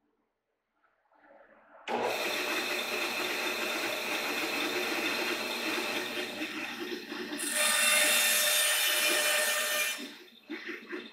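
Bandsaw cutting a thin cedar blank. The saw noise starts abruptly about two seconds in after near silence, grows louder and hissier for a couple of seconds in the middle, and fades off a second before the end.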